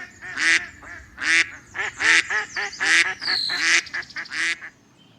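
Duck quacking over and over, a quick run of loud quacks about two or three a second that stops just before the end. A short falling whistle-like chirp comes in the middle.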